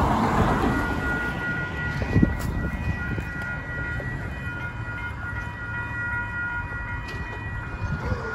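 Railway level-crossing warning bell ringing steadily with the crossing signals active, over a continuous low rumble. A vehicle passes close by in the first second.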